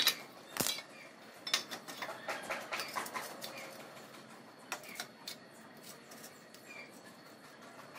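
Square steel tubing and magnetic welding clamps being handled on a frame: a couple of sharp metal knocks as the tube is set in place, then lighter clicks and clatter as the magnets are put on.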